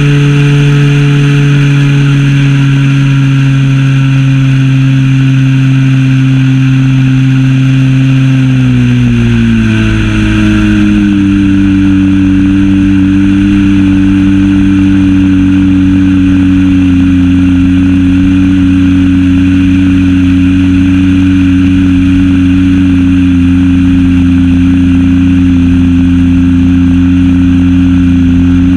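Zenoah ZP 20 two-stroke gas engine of a Super Senior 80 RC plane running loud and close in flight. About a third of the way in its pitch drops as the throttle is eased back, it holds a steady lower drone, and near the end it starts to rise again.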